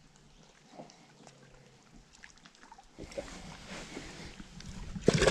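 Faint low hum, then from about three seconds in wind and handling noise rumbling on a chest-mounted camera on a boat deck, with a sharp knock near the end.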